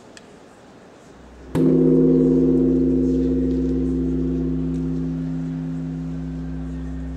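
A gong struck once, about a second and a half in, then ringing on with several low tones that waver slightly and slowly fade.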